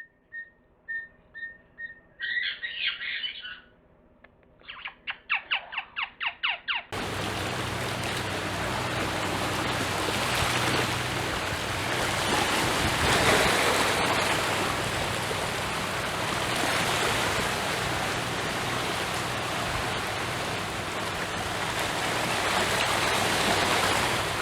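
Short, evenly repeated high chirping calls from an animal, a brief harsher call, then a quick run of rapid clicking notes. After about seven seconds this cuts to a steady rushing noise that fills the rest of the stretch.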